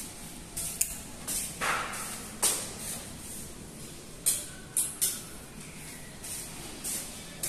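Footsteps scuffing on a tiled floor: short, uneven swishes about once or twice a second as someone walks through the rooms.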